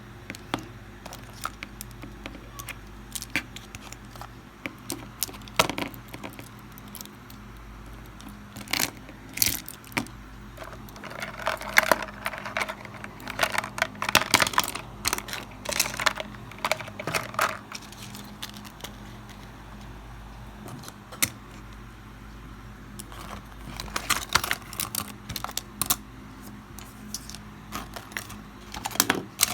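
Small objects clicking and clattering as they are handled, moved and set down on a desk during tidying, in bursts with quieter stretches between. A steady low hum runs underneath.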